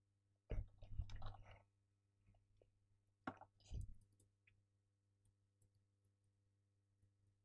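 Computer keyboard and mouse clicks during screen work: a quick cluster of clicks about half a second in and a second, shorter one about three seconds in, over a faint steady electrical hum.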